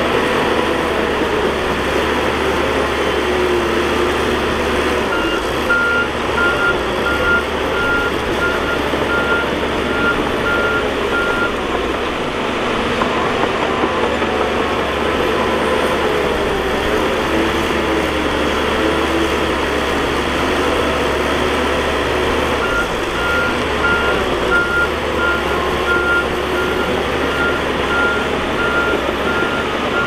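Bulldozer diesel engine running steadily, with a backup alarm beeping at an even pace, about one and a half beeps a second, for several seconds at a time, starting about five seconds in and again past the twenty-second mark as a machine reverses.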